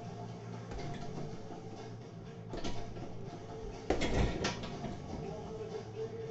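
A round kick thudding into a hanging heavy punching bag about four seconds in, the loudest sound; a fainter knock comes a little over a second earlier.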